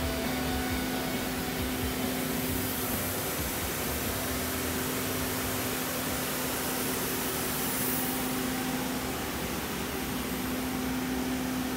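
Steady machine-shop hum: an even mechanical drone with one constant low tone, with no cutting, starts or stops.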